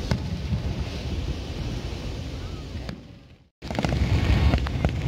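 Fireworks at a distance, heard through wind rumble on the microphone with an occasional sharp pop. The sound fades and cuts out about three and a half seconds in, then returns with rapid crackling and popping.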